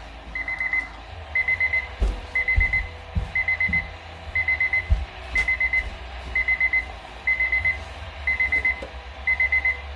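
Weather radio receiver's alert alarm: a high beep in quick groups of four, repeating about once a second, signalling an incoming weather alert. A low rumble with a few dull thumps sits underneath.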